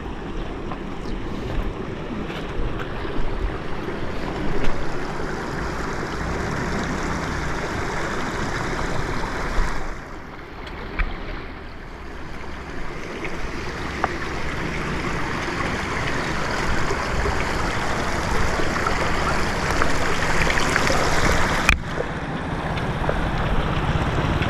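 Stream water running over rocks, a steady rushing noise that drops for a couple of seconds about ten seconds in, with a single sharp click a few seconds before the end.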